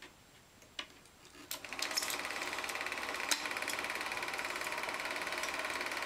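Colas Rail Class 70 diesel locomotive passing close by: its engine's fast, steady buzzing drone swells in about a second and a half in and holds, with a few sharp clicks.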